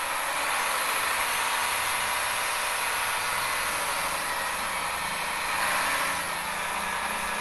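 Volvo A25G articulated dump truck's diesel engine running steadily while its hydraulic rams tip the dump body up, slightly louder about three-quarters of the way through.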